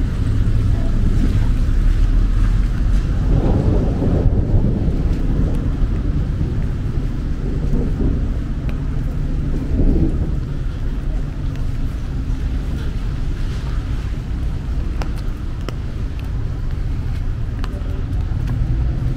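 City street traffic: motor vehicles running close by, heard as a steady low rumble with a low engine hum.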